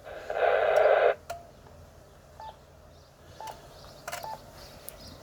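Amateur HF transceiver's speaker giving about a second of receiver hiss, then three short beeps about a second apart as its buttons are pressed during antenna-tuner adjustment.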